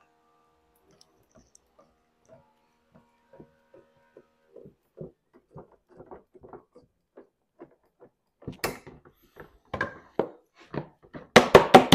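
Sheet lead being cut by hand at the bench: a run of soft short strokes, then from about eight seconds in louder sharp cuts that near the end turn into a quick, regular series of about three a second.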